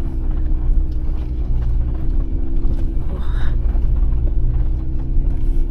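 Jeep Gladiator driving slowly on a dirt trail, heard from inside the cab: a steady engine hum over a low rumble from the tyres and drivetrain, with a few faint knocks from the rough ground.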